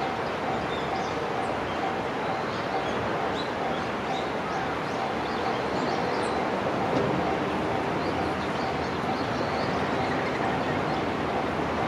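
Japanese railway level-crossing alarm ringing in an even, rapid repeating ding over a steady rushing noise.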